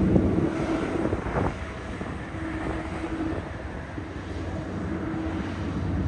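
Heavy truck's diesel engine pulling a load up a steep grade: a steady low drone with a held tone, louder for the first second and a half, then steadier and a little quieter.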